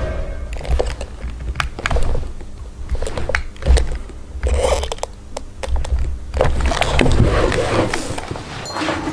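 Handling noise as a puppet and its cloth robe are moved: irregular knocks, clicks and scraping rustles over a low rumble.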